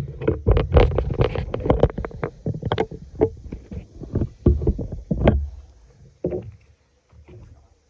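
Close rustling and knocking with heavy low thumps, as of someone moving through garden plants with the recording device in hand; it thins out about six seconds in and stops near the end.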